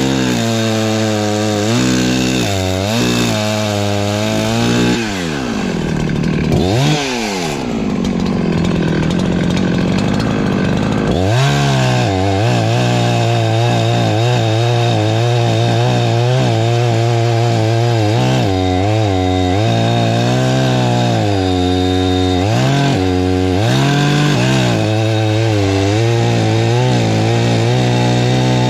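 Perla Barb 84cc two-stroke chainsaw at full throttle cutting firewood, its pitch sagging again and again as the chain bites into the wood. About five seconds in it drops back to low revs for several seconds, then revs up and cuts on.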